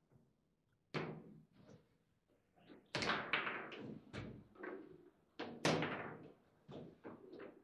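Foosball table in play: irregular sharp knocks and clacks of the ball striking the plastic players and table walls and of the rods banging, after a quiet first second, the loudest hit coming about two-thirds of the way through.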